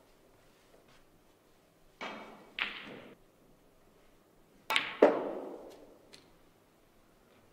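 Snooker shot: the cue tip strikes the cue ball, and a third of a second later a louder, sharp ball-on-ball click rings out and fades over about a second. A couple of softer knocks come about two seconds in.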